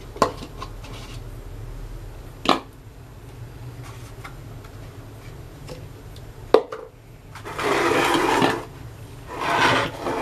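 A few light plastic knocks as the funnel is handled and fitted, then water poured from a plastic cup through a funnel into a plastic sprayer bottle in two pours, each about a second long.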